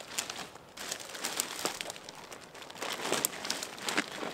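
Dry, freshly cut blackberry canes crackling and rustling under feet and gloved hands, with irregular crackles and a few sharper snaps around three and four seconds in.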